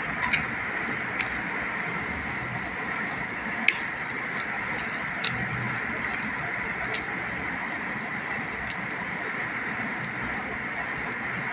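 Fingers mixing cooked rice with potato kuzhambu on a plate: soft wet squishing with a few light clicks, the sharpest about four seconds in, over a steady background hiss.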